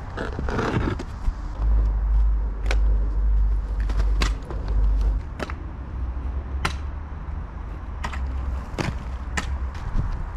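A shovel scraping and digging into a pile of loose clay soil, the blade giving sharp clinks about once a second as spadefuls are lifted and thrown. A low rumble runs underneath, strongest through the middle.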